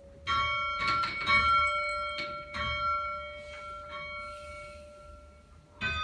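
Swan Bells, the tower's church bells, chimed by pulling their ropes: several strikes in the first three seconds, their ringing slowly dying away, then another bell strike near the end.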